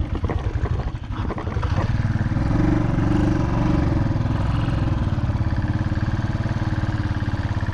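Royal Enfield motorcycle engine under way with a steady throb, its revs picking up about two seconds in and then holding steady.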